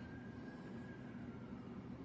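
Faint, steady low rumble of background noise with no shots or impacts. A faint thin high tone rises slightly, holds, then fades after about a second and a half.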